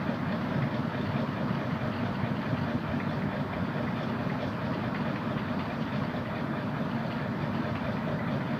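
Ginger being pounded and ground with a granite pestle in a stone mortar: a dense, steady run of dull stone-on-stone knocks and grinding.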